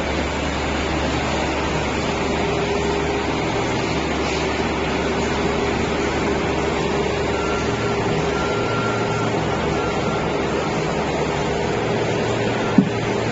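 Steady hum of industrial machinery, with a low drone and a steady mid-pitched tone. Three short faint high beeps sound about halfway through, and a single sharp click comes near the end.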